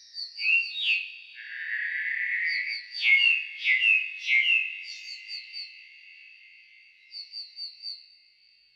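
Nightingale song played back slowed down four times: runs of quick repeated notes, a long held lower note, then three sharp downward-sweeping notes about three to four and a half seconds in, trailing off into softer repeated notes near the end.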